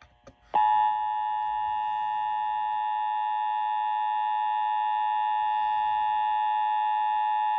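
Emergency Alert System attention signal played over radio: the steady two-tone alert tone (853 and 960 Hz sounded together), starting about half a second in and holding unbroken.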